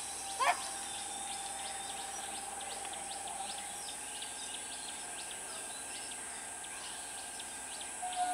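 Birds chirping and insects: a steady high insect drone under frequent short bird chirps, with one louder, quick rising bird call about half a second in.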